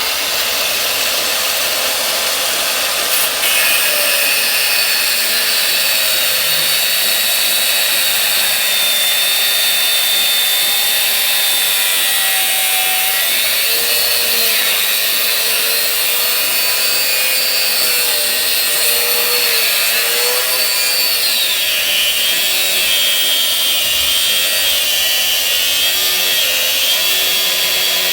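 Angle grinder with a cutting disc cutting through old galvanised iron water pipe, running steadily with a high whine that wanders up and down in pitch as the disc is pressed into the metal.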